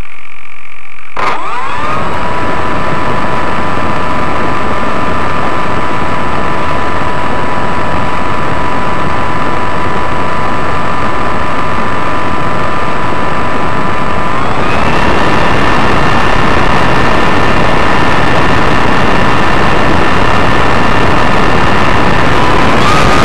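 Model Cessna 185's motor and propeller start about a second in and run steadily with a high whine, heard close up through the plane's onboard camera with a rush of propeller wash. About 15 s in the throttle is opened further and the whine steps up in pitch and gets louder.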